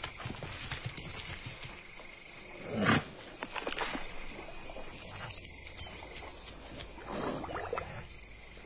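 Savanna nature ambience from an animated soundtrack: an insect chirping in a steady high pulse, about three chirps a second, over faint outdoor background. Soft wet clicks and laps come from zebras drinking at a waterhole, with a brief louder low sound about three seconds in.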